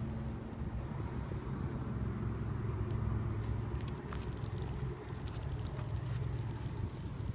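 A steady low mechanical hum, with a few faint light ticks and scuffs of shoes on asphalt shingles.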